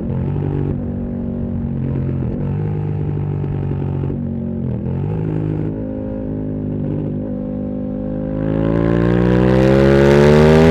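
KTM 1290 Super Duke R's V-twin engine through a full titanium Akrapovič exhaust, running at part throttle with a few brief dips in pitch. About eight seconds in it opens up under hard acceleration, the pitch rising steadily and getting louder.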